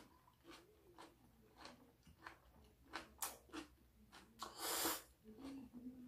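Close-up chewing and mouth sounds of someone eating a bell pepper cup stuffed with mashed root vegetables: a string of small clicks and smacks, with a short breathy exhale about four and a half seconds in.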